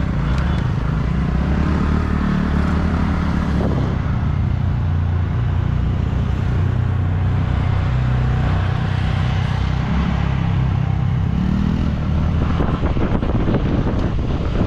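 Motor vehicle engine running steadily while riding, its pitch rising briefly about eleven seconds in, with rattling over the last few seconds.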